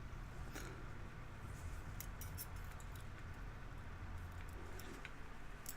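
Faint small metallic clicks and taps of lock pins and tools as the pins are taken out of a gutted padlock core, a few scattered ticks over a steady low hum.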